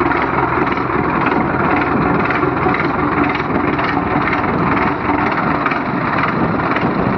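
Two tractors' diesel engines running hard under load as they pull against each other on a tow rope in a tug-of-war. A steady, dense engine noise with no break.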